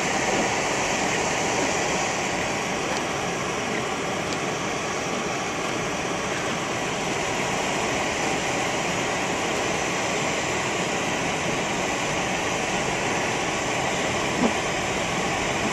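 Blizzard wind blowing steadily, with a brief knock near the end.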